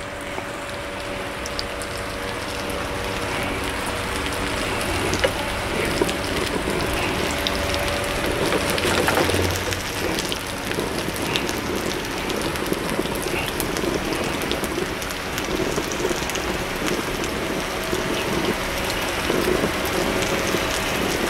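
Pancake batter sizzling in a hot frying pan, a steady crackle, while a metal spoon spreads it and knocks lightly on the pan now and then. A faint steady hum runs underneath.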